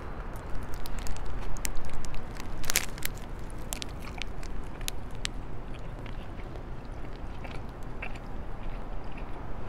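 Close-up biting and chewing of nori-wrapped onigiri rice balls, with scattered sharp crackles, a cluster of them about one to three seconds in.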